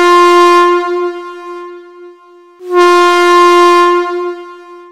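Train air horn sounding two long, steady single-note blasts, each held about a second and a half and then fading away, the second starting about two and a half seconds in.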